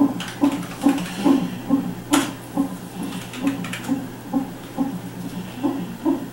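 Fetal heart monitor's Doppler speaker playing the baby's heartbeat during labour: a fast, even whooshing pulse a little over two beats a second, over a steady hum, with a brief click about two seconds in.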